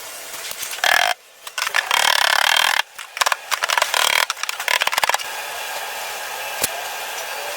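Power tool abrading in several short bursts with abrupt cuts between them, then running more steadily.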